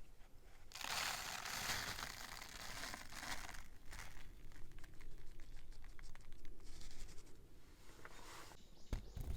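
Thin paper or plastic being torn open and crumpled by hand: a dense tearing rustle for about three seconds, then a run of crinkling and crackling.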